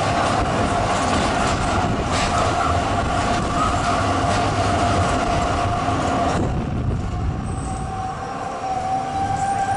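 Zürich tram heard through an open window, running along street rails with a steady hum and rumble. About six and a half seconds in, the running noise drops off sharply as the tram slows for a stop, leaving a thin whine.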